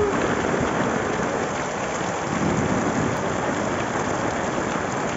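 Heavy rain pouring down onto a flooded street: a loud, steady, dense hiss.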